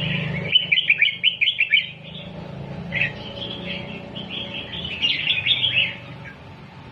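Red-whiskered bulbul singing: a quick run of chirpy, warbling notes, a single note a little later, then a second run, all over a steady low hum.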